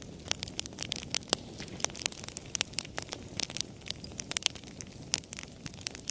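Wood fire crackling in a fireplace: frequent sharp irregular pops and snaps over a low, steady rumble of flames.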